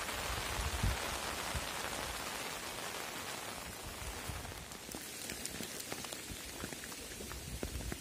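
Steady rain falling, a dense even hiss; after about five seconds it thins a little and single drops stand out as separate ticks.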